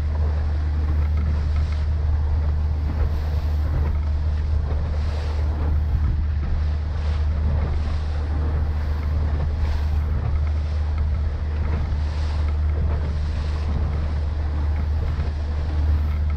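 A 140-horsepower outboard motor running steadily with the boat under way at speed, a constant low drone under the rush of water past the hull. Wind buffets the microphone.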